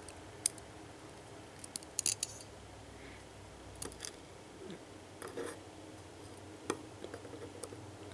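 Light metal clicks and ticks of tweezers against small lock pins, springs and the lock's housing as pin stacks are taken out of a disassembled pin-tumbler lock. The clicks are scattered and irregular, with a quick cluster about two seconds in.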